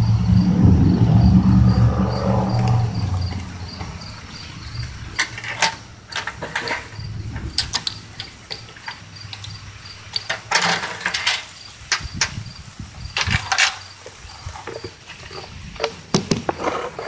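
A cricket chirping steadily at about four chirps a second, with scattered sharp clicks and rasps. A low rumble fades away over the first three seconds.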